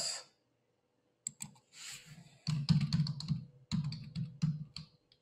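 Typing on a computer keyboard: a few scattered keystrokes, then a quick run of keys from about halfway in.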